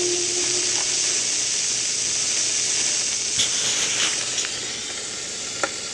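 A 45 rpm vinyl single on a turntable: the last held note of the record dies away just at the start, leaving a steady surface hiss from the stylus in the groove, with a few light clicks in the second half.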